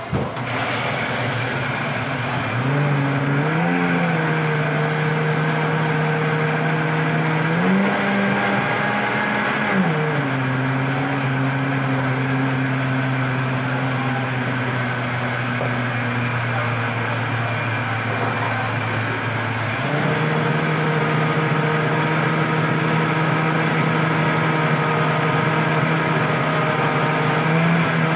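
Electric blender motor running continuously while mixing a shake, a steady hum that shifts in pitch a few times.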